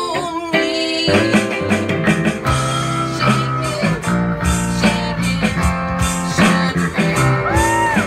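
Live blues-rock band playing an instrumental passage: electric guitar over strummed acoustic guitar, with a low bass line coming in about a second in. A note bends up and back near the end.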